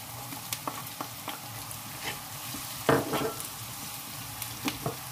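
Onions and chopped red peppers sizzling in hot oil in a frying pan while a wooden spatula stirs them, with scattered light scrapes and taps and one louder knock a little past halfway.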